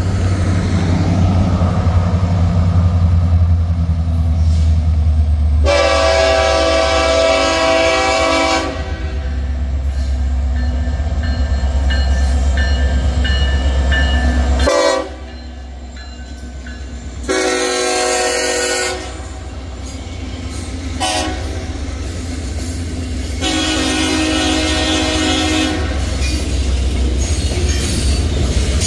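Norfolk Southern freight train's diesel locomotives sound their horn three times as they pass, with long blasts about 6 s and 24 s in and a shorter one near 17 s, over a heavy low engine rumble. After the locomotives go by, the freight cars roll past with a steady clickety-clack.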